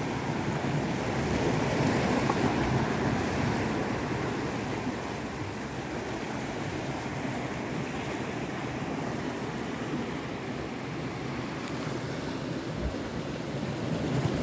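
Sea surf washing around shoreline rocks: a steady rush of moving water that swells a little in the first few seconds.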